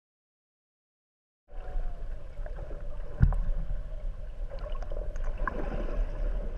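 Dead silence for about a second and a half, then a steady rumble with water noise and small clicks, with a single sharp knock about three seconds in.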